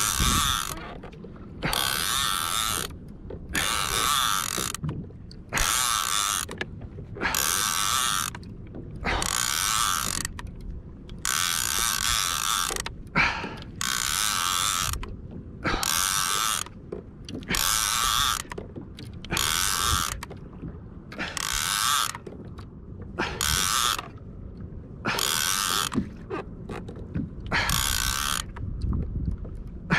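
Fishing reel being cranked in short bursts, a ratcheting mechanical whir about once a second with brief pauses between turns, as the line is worked in.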